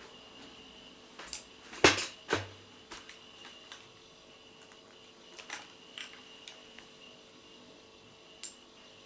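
Household clatter: sharp knocks and clinks, the loudest a quick cluster about two seconds in, then lighter scattered ticks, over a faint steady high whine.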